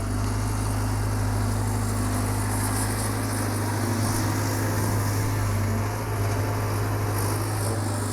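Caterpillar 320 GC excavator's diesel engine running steadily at full throttle, a constant low hum.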